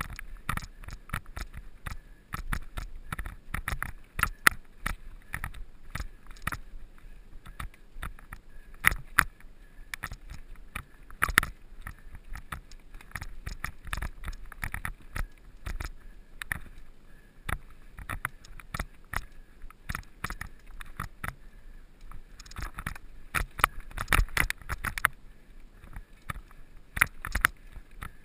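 Mountain bike rattling and clattering over rough ground while being ridden in a cross-country race: a dense, irregular run of knocks and rattles over a steady low rumble, with heavier clusters about a third of the way in and again near the end.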